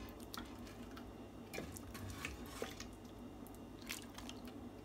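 Faint scattered clicks and scrapes of a metal ladle as cooked mutton masala is spooned out and dropped into a pot of thick dal.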